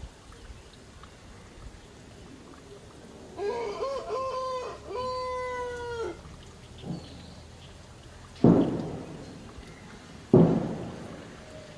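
Baby macaque crying in three high, wavering calls about three seconds in, the last one the longest. Two loud thumps come later, each fading out over about a second.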